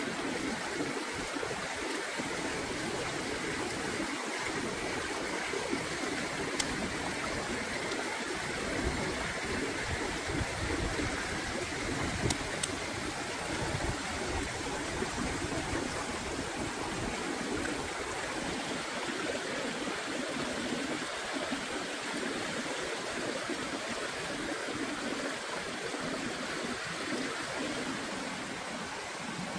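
Steady rush of a shallow stream running over rocks, with a few faint clicks.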